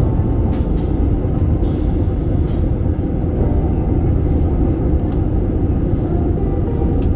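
Steady low roar of jet airliner cabin noise during the descent, with background music playing over it.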